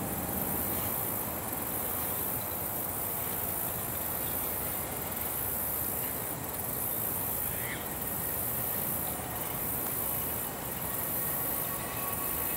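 Distant freight train rolling across a long stone-arch bridge: a steady, even rumble of wheels on rail, under a constant high trill of insects. Faint thin steady tones come in near the end.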